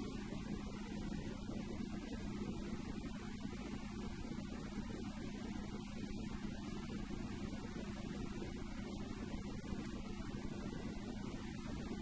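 Goggomobil's two-stroke twin-cylinder engine running at a steady cruising speed, heard from inside the small car as an even drone with road noise.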